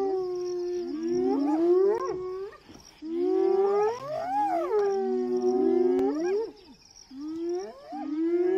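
Several spotted hyenas calling at once: overlapping long, whining calls that each hold a pitch and then slide sharply upward. They come in three bouts with short breaks between.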